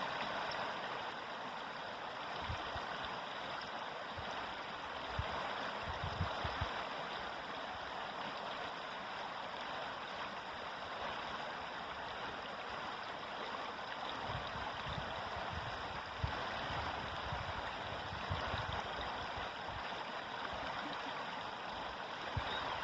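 River water flowing steadily over rocks, a constant rushing and gurgling, with a few brief soft low bumps now and then.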